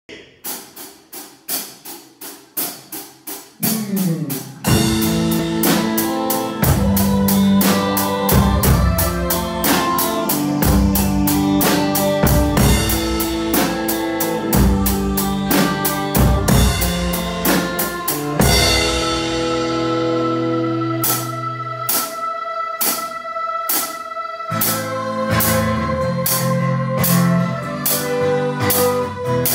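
Instrumental intro of a slow pop song played by a band with drum kit, bass and guitar. It opens with a few seconds of light, evenly spaced ticks before the full band comes in just under five seconds in, and a cymbal crash sounds about eighteen seconds in.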